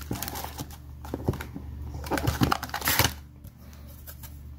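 Plastic parts bags crinkling and rustling as they are handled, with scattered clicks and taps; busiest about two to three seconds in, then quieter.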